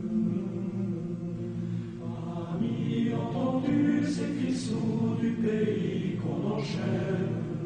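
A choir singing slow, held notes, swelling fuller about two and a half seconds in, with a few hissing 's' sounds in the middle and near the end.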